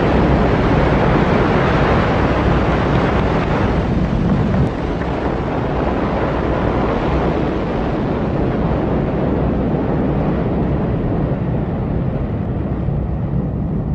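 Loud, continuous rumble of a rocket exploding and burning on its launch pad. It drops a little in level about five seconds in, then slowly eases off.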